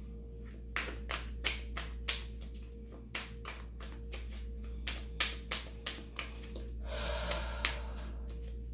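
Tarot cards being handled and shuffled: a run of irregular sharp snaps and taps from the cards, with a brief rustle about seven seconds in, over a steady low hum.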